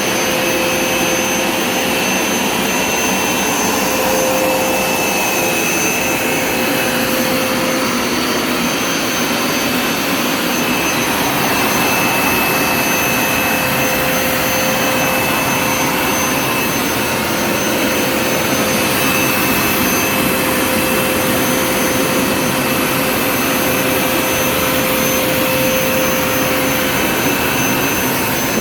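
Hoover Smartwash Pet Complete carpet cleaner running steadily, its suction motor giving a constant whine over a rush of air and water, in a rinse pass over the carpet.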